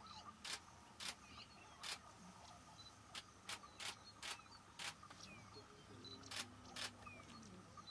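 Single-lens reflex camera shutter clicking, about ten single clicks spaced unevenly, with faint bird chirps in the background.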